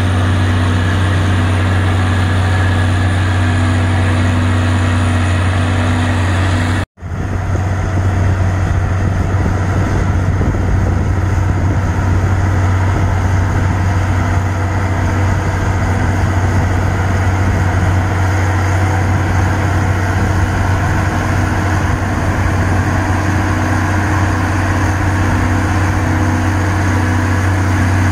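Amphibex amphibious icebreaker's engine running steadily with a low drone. The sound drops out for an instant about seven seconds in, then carries on the same.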